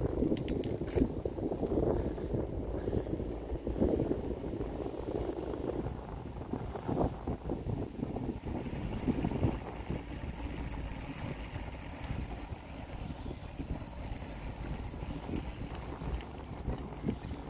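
Mountain bike with knobby tyres rolling over a concrete sidewalk and asphalt: a steady low tyre rumble with irregular knocks and rattles from bumps, louder over the first few seconds.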